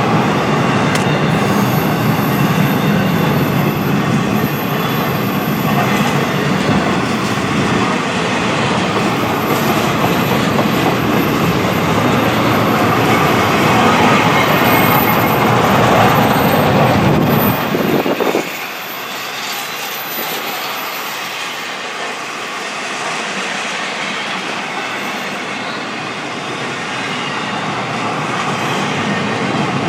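BNSF freight train rolling past, the cars' wheels clattering on the rails with a thin high-pitched squeal over the noise. About eighteen seconds in, the deep rumble drops away suddenly and a quieter rolling sound carries on.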